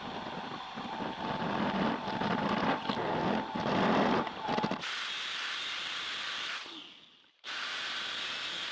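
Workshop machine or power tool running and cutting: a steady noisy hiss with a faint steady whine for about five seconds, then a smoother steady hiss that fades and cuts back in after a short break.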